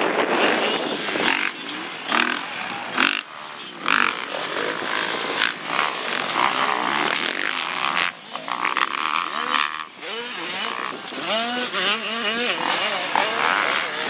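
Several motocross dirt bike engines revving, rising and falling in pitch again and again as the riders open and close the throttle around the track.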